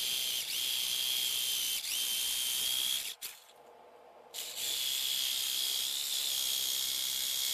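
Jigsaw cutting a slot into PVC plastic pipe: a steady high whine over a rasping hiss, stopping briefly a little past three seconds in, then starting again for a second cut.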